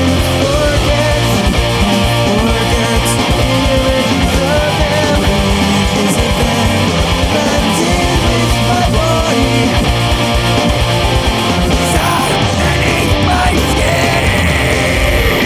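Death metal music, an instrumental passage: a guitar melody line over heavy distorted guitars and dense, rapid drumming.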